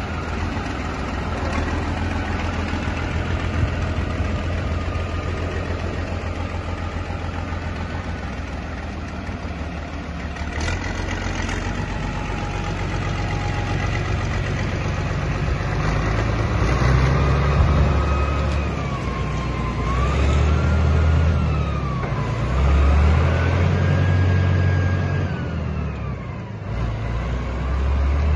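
Fiat F110 4x4 tractor's diesel engine running as the tractor is driven, the engine note swelling and easing several times with the throttle. From the middle on, a whine rises and falls in pitch along with it.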